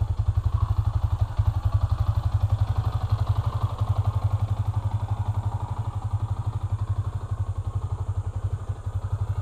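Yamaha Sniper 150's single-cylinder four-stroke engine idling steadily, a quick even run of low exhaust pulses.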